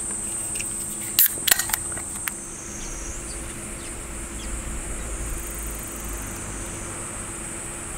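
A steady high-pitched insect chorus with a faint low hum, broken about a second in by a quick cluster of sharp clicks; a low rumble comes in a few seconds later.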